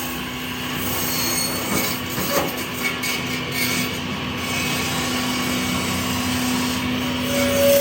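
Electric 12-blade ice block cutting machine running, its saw blades cutting through ice over a steady motor hum, with a few short knocks about two and three seconds in.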